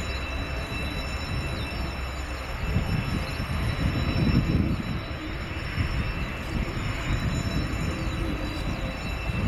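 Panavia Tornado jet on final approach with its twin RB199 turbofans, heard as a distant, rumbling jet roar that swells unevenly from about three seconds in, with a thin steady high whine over it.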